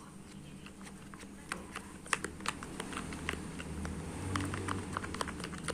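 Slime being stirred in a container: a run of irregular sticky clicks and smacks that grows busier. The mixture is starting to clump as activator is worked in.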